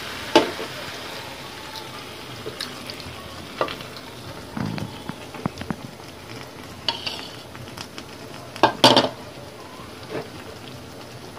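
Vegetables and green masala sizzling in an aluminium pressure cooker while a metal spatula scrapes water out of a bowl into it. Sharp clicks of the spatula on metal come now and then, the loudest two close together about nine seconds in.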